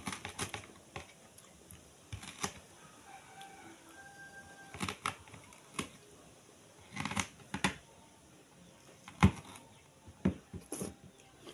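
Metal spoon scooping soft soursop flesh, with mouth sounds of eating: a string of irregular small clicks and soft scrapes, a quick cluster about seven seconds in and the sharpest click about nine seconds in.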